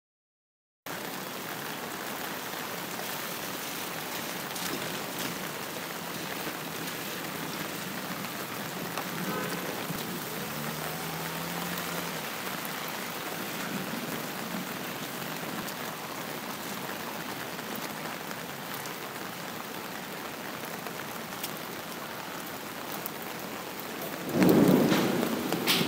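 Steady heavy rain, starting about a second in, with one loud thunderclap near the end that dies away over a second or so.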